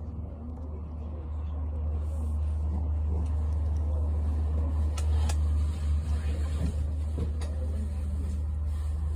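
Steady low rumble and hum of a tram, heard from inside the car, with a couple of faint clicks about halfway through.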